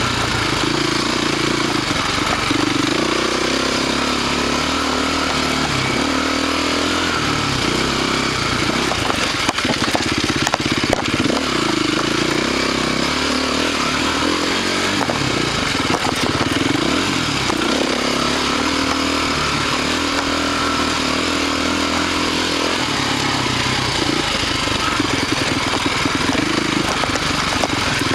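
Husqvarna TC450 four-stroke single-cylinder dirt bike engine running while ridden along a trail, its revs rising and falling with the throttle. A few sharp knocks come about ten seconds in.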